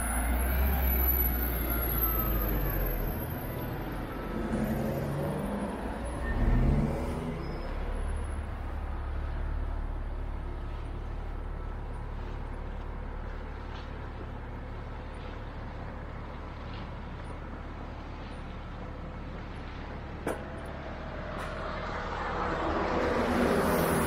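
Low, steady engine rumble of motor traffic, swelling near the end as a vehicle passes close.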